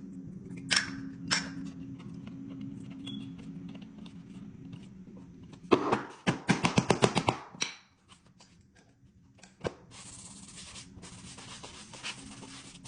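A rapid run of sharp taps, about seven a second, lasting a second and a half midway, over a low steady hum, with a couple of single clicks early and a rough scraping hiss near the end.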